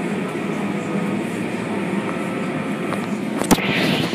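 Automatic car wash running, heard from inside the car as its cloth wash strips sweep over the glass: a steady rumble and swish, with a sharp knock about three and a half seconds in.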